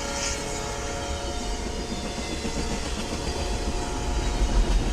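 A train running on the rails: a steady low rumble with wheel clatter, growing louder near the end, and a few faint steady tones in the first second or so.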